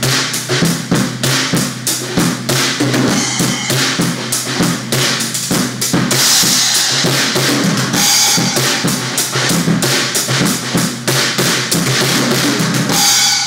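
Acoustic drum kit played with bundled rods: a busy groove of snare, toms and bass drum, with cymbal crashes about six seconds in, around eight seconds, and at the very end, the last one left ringing.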